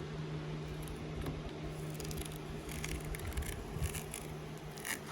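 A steady low hum, with faint rustling and small clicks that become more frequent about halfway through.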